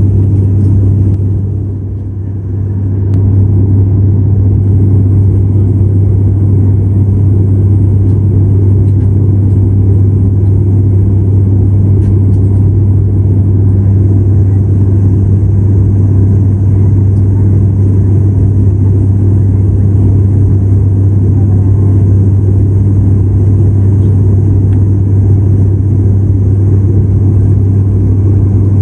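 Steady low drone of an ATR 72-500's twin turboprop engines and propellers heard from inside the passenger cabin in cruise, dipping briefly about two seconds in.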